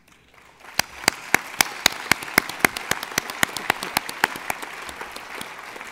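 Audience applauding in a large hall, building up about half a second in. Close, sharp hand claps stand out over it at about four a second, from someone clapping right by the podium microphone.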